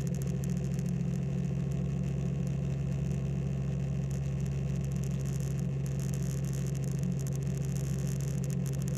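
Steady engine drone inside a small aircraft's cabin in flight, an even low hum that holds without change.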